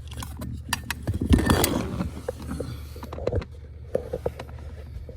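Clicks and scraping of a blower motor resistor being worked free from its mounting under the dashboard, with a burst of rustling and handling noise about a second in and a few knocks later, over a steady low hum.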